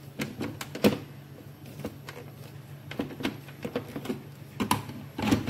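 Electric countertop blender running on chunks of cooked tomato and onion: a steady low motor hum with irregular knocks and clatter.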